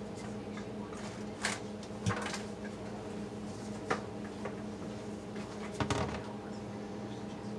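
A few light knocks and clicks of utensils being handled on a countertop, the loudest a short clatter about six seconds in, over a steady low hum.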